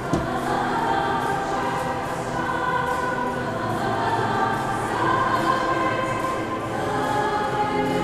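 A high school girls' choir singing together in held, overlapping notes, with a brief knock just after the start.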